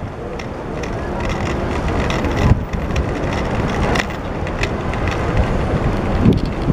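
A bicycle rolling through city traffic: steady road and traffic rumble, with scattered clicks and rattles and a sharp knock about two and a half seconds in.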